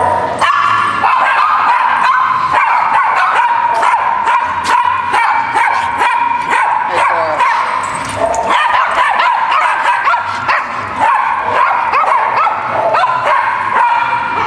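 Small dogs barking and yipping, many calls overlapping without a pause.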